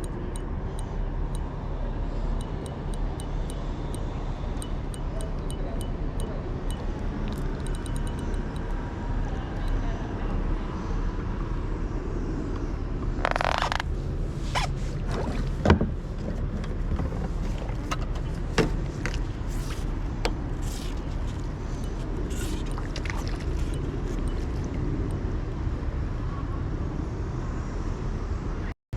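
A steady low outdoor rumble, with a short scrape about thirteen seconds in, followed by scattered light clicks and one sharp knock.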